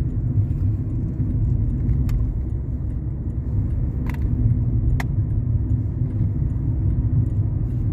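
Steady low road and engine rumble heard inside a moving car's cabin, with three brief sharp clicks, the first about two seconds in and two more near the middle.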